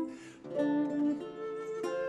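A bass recorder plays held melody notes over a plucked lute accompaniment. There is a short break in the recorder line just after the start, filled with a breathy hiss, before the notes resume.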